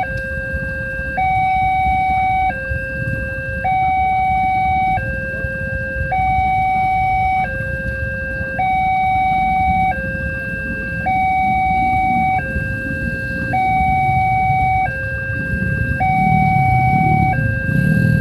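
Railway level-crossing warning alarm sounding a two-tone high-low signal, switching pitch about every second and a quarter, the warning that a train is approaching. A low rumble underneath grows louder near the end.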